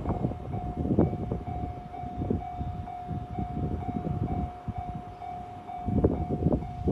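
Japanese level-crossing warning bell sounding its steady repeating electronic ding while a train runs past, its wheels rumbling with irregular knocks.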